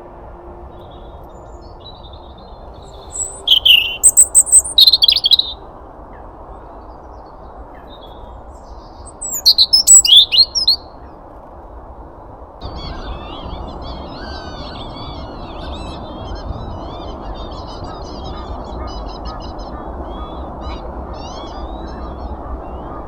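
Wild birds calling: two loud bursts of sharp, repeated high calls, the first about three seconds in and the second about nine seconds in. About halfway through, a busy twittering chorus of small birds starts over a steady low background noise.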